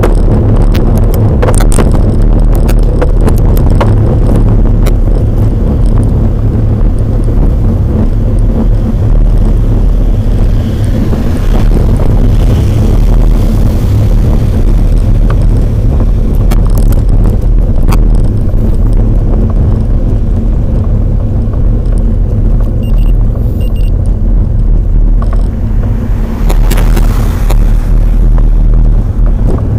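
Steady, loud low rumble of wind buffeting and road vibration on a bike-mounted action camera's microphone as a bicycle rides a steep road, with a brief surge of hiss near the end.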